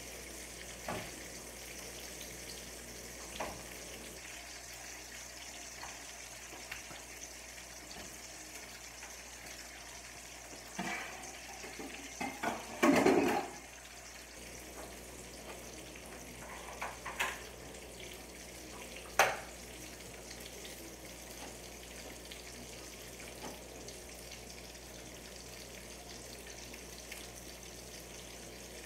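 Sausage sizzling steadily in a pan, with a few sharp knocks and one louder brief clatter about halfway through.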